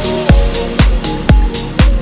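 Deep house music from a DJ mix: a steady four-on-the-floor kick drum about twice a second under sustained synth notes.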